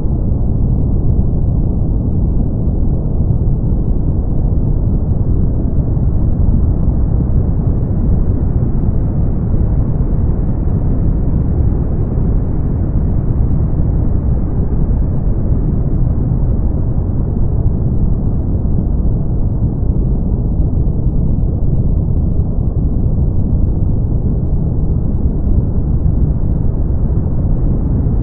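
Brown noise: a steady, deep rumbling hiss with most of its energy in the low end, the top slowly brightening a little and dulling again.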